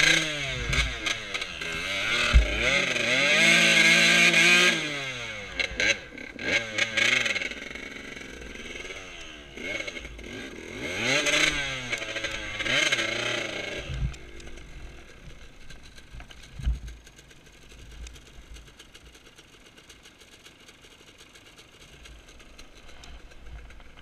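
KTM EXC enduro motorcycle engine revving up and down in bursts on muddy ground, loudest in the first five seconds and again about ten to fourteen seconds in, then running more quietly.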